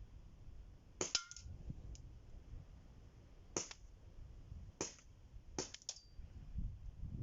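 WE-Europe M1911 gas blowback airsoft pistol firing four sharp shots over about five seconds, irregularly spaced. Some shots are followed by a second quick clack of the slide blowing back.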